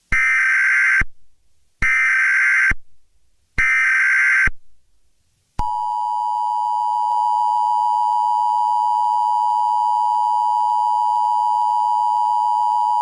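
Emergency Alert System SAME header: three data bursts of rapid warbling beeps, each about a second long with short gaps between them. About five and a half seconds in, the EAS two-tone attention signal starts, a steady, harsh dual tone that holds to the end.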